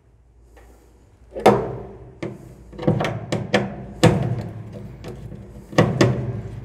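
A multi-bit screwdriver clicking and knocking against a screw head and the dryer's blower housing as it is fitted and turned to remove the thermistor screw. About half a dozen sharp taps after a quiet first second, a few with a short metallic ring.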